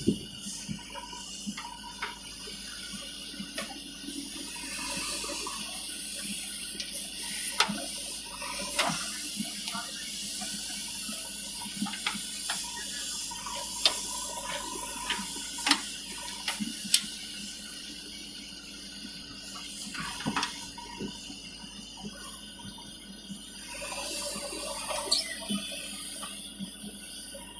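JCB 3DX backhoe loader digging and dumping earth: a steady rushing engine and hydraulic noise with scattered knocks and clatters from the bucket and falling soil.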